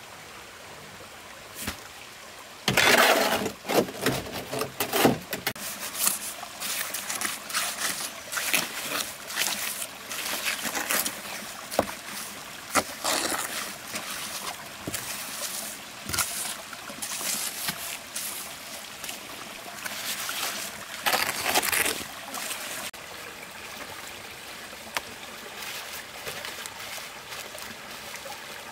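Wet concrete being worked: a shovel scraping and slapping it in a steel wheelbarrow, then irregular scrapes and wet slaps as it is spread and smoothed over a slab with a trowel. A steady background rush of flowing stream water lies underneath.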